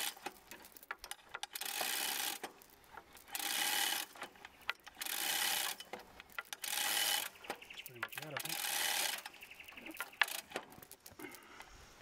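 A chain hoist's hand chain being hauled hand over hand, the chain rattling through the hoist in about six pulls, with sharp ratchet clicks between the pulls.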